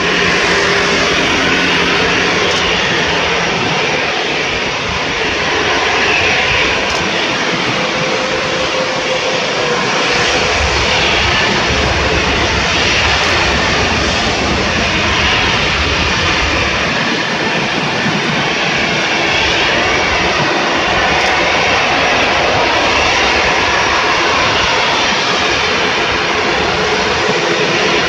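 Jet engines of an Airbus A321neo airliner running steadily as the aircraft rolls away down the runway.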